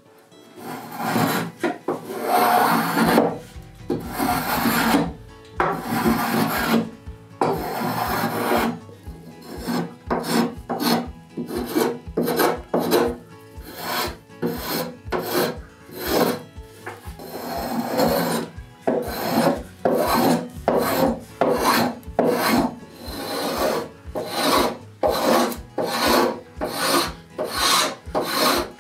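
Spokeshave cutting shavings along the live edge of an oak slab, a rasping stroke repeated over and over: a few long strokes at first, then shorter, quicker ones about two a second.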